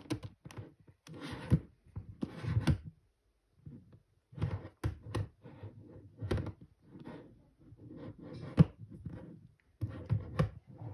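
Gigaminx twisty puzzle's plastic layers being turned by hand: bursts of quick clicking and scraping turns, with a brief pause a little past three seconds in.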